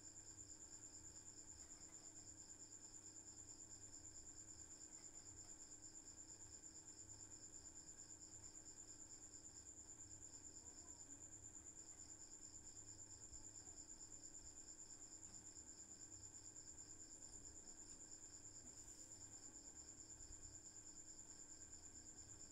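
Faint room sound with crickets trilling: one steady high-pitched trill and a second pulsing one that stops briefly about halfway through, over a low hum.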